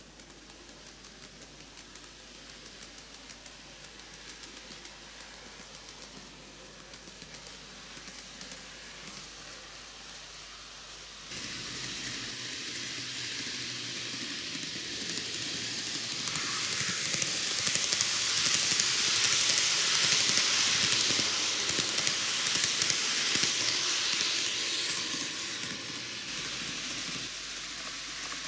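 TOMIX N-gauge model of the Kintetsu 80000 series 'Hinotori' eight-car electric train running around a track loop: a rushing hiss of small metal wheels on the rails with the motor's hum. It grows slowly, jumps louder about eleven seconds in, is loudest midway as the train runs close, then eases and builds again near the end.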